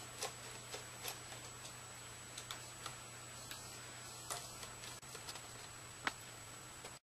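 Scattered light clicks and taps of small laptop parts being handled while a replacement LCD panel is fitted, with a sharper click about six seconds in; the sound cuts off suddenly near the end.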